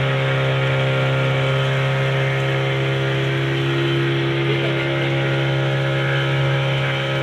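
Boat engine running steadily at an even speed, a constant low hum with no change in pitch.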